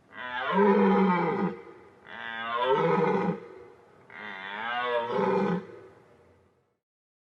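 A large animal giving three long calls about two seconds apart, each lasting about a second and a half.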